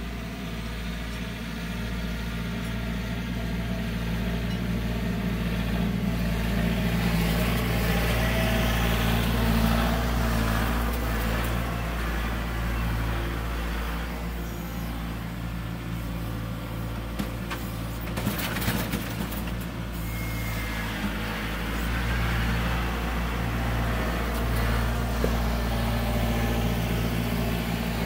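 Compact utility tractor with front loader and rear box blade running and driving over rough ground, its engine growing louder and then easing as it moves. About two-thirds of the way through comes a short spell of rattling knocks.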